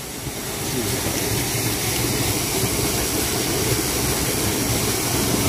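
Steady rushing of river water, swelling over the first second and then holding even.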